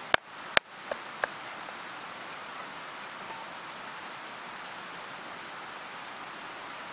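A metal fork clicking sharply against a frying pan, two loud clicks and two lighter ones in the first second or so, over a steady outdoor hiss.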